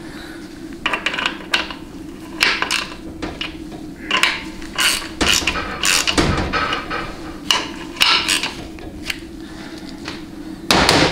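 Hand ratchet clicking on the 700R4's extension housing bolts, with scattered metal clanks of the tool against the aluminium housing, in irregular bursts over a steady low hum.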